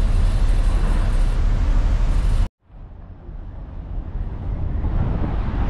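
Steady low rumble of a moving ferry, with wind noise on the microphone. About two and a half seconds in it cuts off abruptly, then fades back in quieter and slowly builds again.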